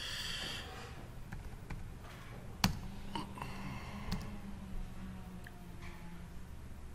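A few sharp computer keyboard key presses, the loudest about two and a half seconds in, with a couple of lighter ones after it, over faint room noise.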